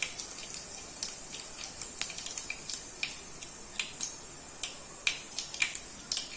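Mustard and cumin seeds sizzling in hot oil in a pan, with irregular sharp pops and crackles as the seeds splutter, several a second. The crackling is the sign that the tempering (tadka) is done.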